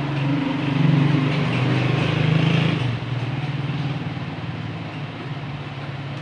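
Chainsaw engine running, louder for the first three seconds or so, then settling to a steadier, lower level.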